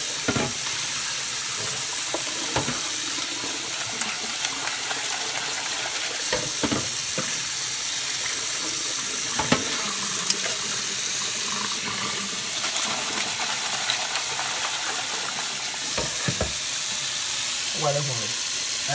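Kitchen tap running in a steady stream into a stainless steel sink and over crayfish being rinsed in a pot, with a few short knocks along the way.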